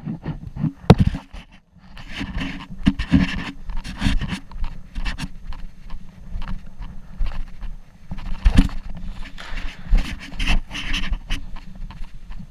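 Heavy panting of an airsoft player, irregular and close, with a few sharp knocks about a second in and again near the end.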